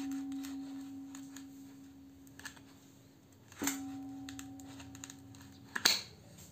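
A kitchen knife chopping through dried salted fish on a wooden cutting board. The chop about three and a half seconds in sets off a ringing metal tone that fades slowly, like the ring already dying away at the start. A sharp knock comes near the end and cuts the ring short.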